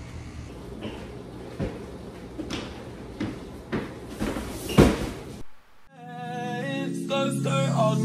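Scattered sharp knocks and clicks over a low steady room hum, like doors and cupboards opening and closing, the loudest a bang about five seconds in. Background music with a bassline comes in at about six seconds.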